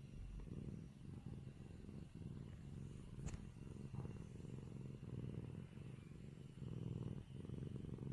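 Li hua (Dragon Li) kitten purring close to the microphone while its face is rubbed, the purr swelling and dipping about once a second. One short click about three seconds in.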